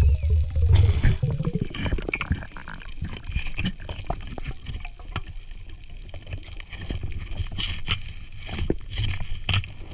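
Underwater sound heard through a camera housing. A low rush of water moves in the first second or so, then scattered clicks and knocks continue over a faint hiss as a diver works along the seabed.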